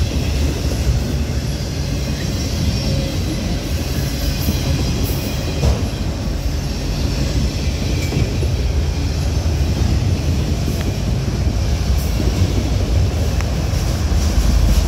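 Freight train of autorack cars rolling past at close range: a steady low rumble of steel wheels on rail.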